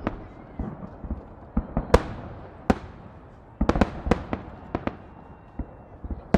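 Fireworks salute shells bursting: sharp bangs in irregular clusters, several in quick succession about two seconds in and again around three and a half to four and a half seconds in, each bang trailing off briefly.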